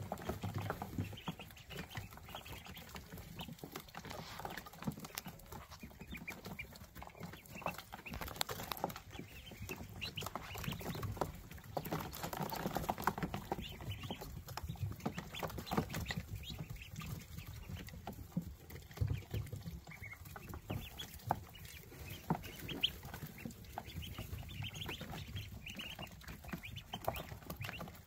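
A brood of ducklings peeping continually in many short high calls, with scattered light tapping and rustling in their bedding.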